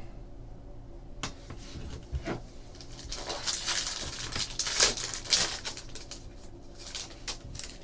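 A trading card pack's foil wrapper crinkling and tearing open, with sharp clicks and taps of cards being handled; the crinkling is densest in the middle.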